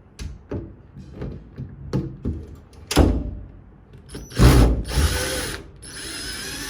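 Screws being backed out of a door knob's mounting plate. There is a run of ratchet-like clicks, a sharp knock about three seconds in, then a tool's motor whirring in two short stretches near the end.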